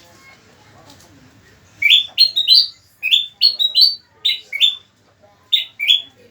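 Kutilang bulbul calling in short, sharp, rising notes, grouped in quick pairs and threes, starting about two seconds in.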